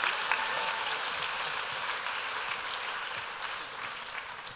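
Audience applauding, the clapping gradually dying down.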